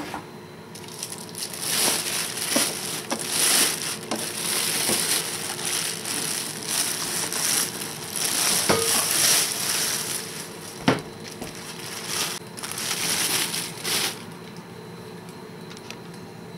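Packing material being handled, crinkling and rustling in bursts, with a few sharp knocks. It stops about two seconds before the end.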